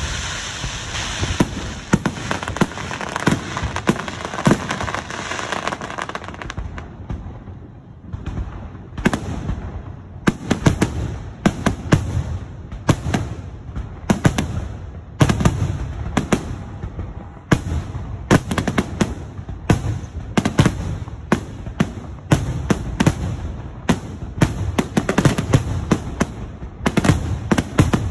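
Aerial fireworks shells bursting, sharp bangs with deep booms. A crackling hiss and scattered bangs come first, then after a brief lull, from about nine seconds on, a dense rapid barrage of reports, several a second.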